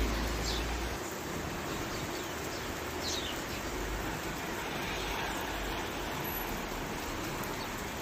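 Steady hiss of falling rain, with two short high bird chirps, about half a second and about three seconds in.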